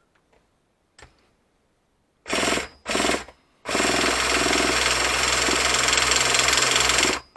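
Electric starter spinning over the truck's 4.1 nitro engine without it firing, to prime it and draw fuel through the line. It comes in two short bursts, then one steady spin of a few seconds that stops suddenly.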